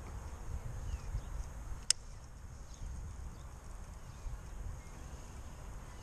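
Wind rumbling on the microphone of a body-worn camera, with one sharp click about two seconds in from the fishing tackle in hand.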